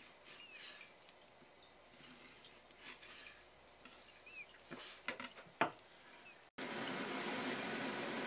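Knife cutting pufferfish (fugu) on a wooden cutting board: faint slicing strokes and light taps of the blade on the board, the loudest a few taps about five seconds in. After a sudden break near the end, a steady hiss takes over.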